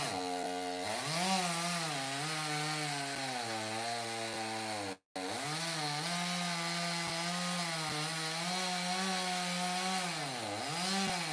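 Stihl chainsaw running at full throttle and cutting through a mulberry trunk. Its engine pitch sags and recovers as the chain loads in the wood. The sound drops out for an instant about halfway through.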